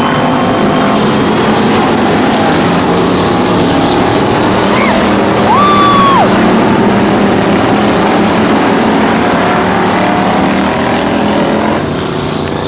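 Several dirt-track stock car engines running loud and steady as the cars race. A brief high tone rises, holds and drops away about halfway through.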